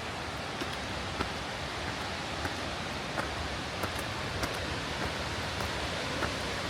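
River water flowing: a steady rush with faint, scattered small ticks of splashing through it.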